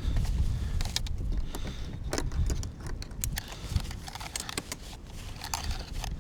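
Wind rumbling on the microphone, with a scatter of small clicks and light metallic rattling from gear being handled.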